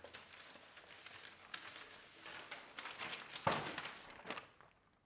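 Sheets of paper of different sizes and materials rustling and crinkling as they are handled, with a louder crackle about three and a half seconds in.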